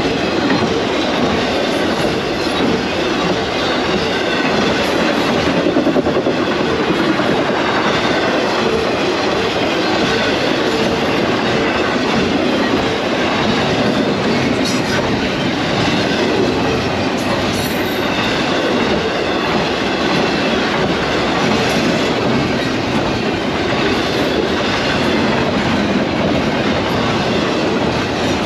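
Union Pacific intermodal freight train passing at track speed: a loud, steady rush of rolling wheels on rail with scattered wheel clicks, running on unbroken through the whole stretch.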